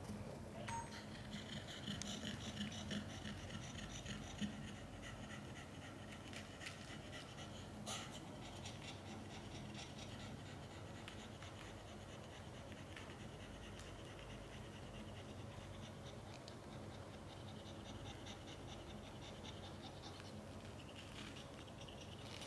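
Mother cat panting in fast, even breaths during labour, between deliveries of her kittens. A single sharp click sounds about eight seconds in.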